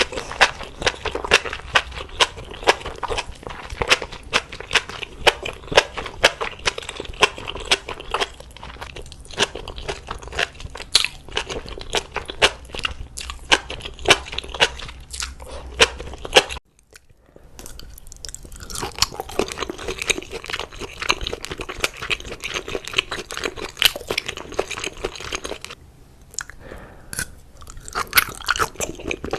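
Close-miked chewing and crunching of food in an ASMR eating show: rapid wet crackles and crunches of bites being chewed. The sound drops out briefly just past halfway and then resumes.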